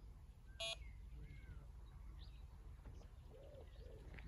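Quiet lakeside ambience: a low steady rumble, faint bird calls, and one short pitched beep just under a second in.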